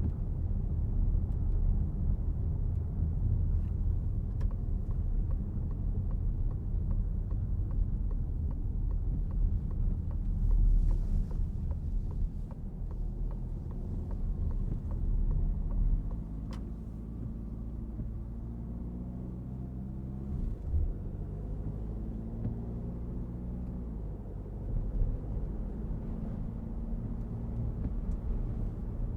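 A 2023 Citroën C5 Aircross with a 1.5-litre diesel driving along: steady low road and tyre rumble with the engine running. About halfway through the rumble eases and the engine's note comes through more clearly, rising and falling in pitch.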